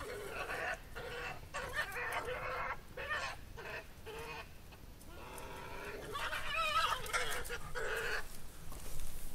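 Two European badgers fighting, giving repeated bouts of harsh, wavering screams and chatters, each lasting about half a second to a second and a half.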